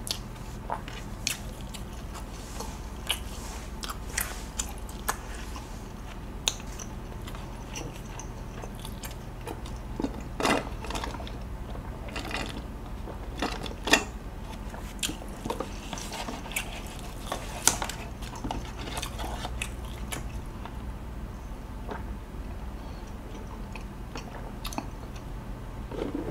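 Close-miked mouth sounds of eating: chewing and swallowing with scattered wet clicks and smacks, and gulps of milk drunk straight from a carton. A few clicks stand out louder, around the middle.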